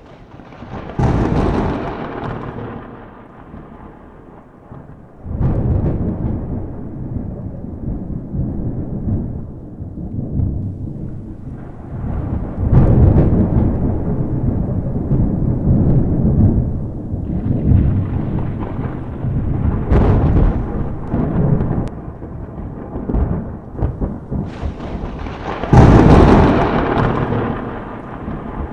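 Thunder: five loud claps, each trailing off in a long rumble lasting several seconds. The clap near the end is the loudest.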